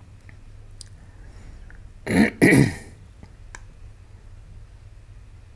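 A person clearing their throat: two quick rasps about two seconds in. A few faint clicks are heard around it.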